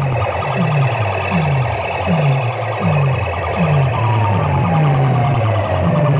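A DJ horn-speaker sound system blasting an electronic track: a deep bass note swoops downward about once every three-quarters of a second under a dense pulsing texture. From about two-thirds of the way in, a siren-like tone slides slowly down.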